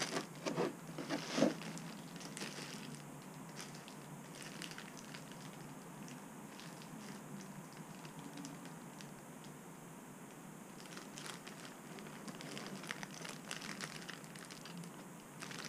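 Soft crinkling and rustling of plastic packaging as model kit parts are handled and unwrapped, with a few sharper crackles in the first second and a half and scattered small ticks after.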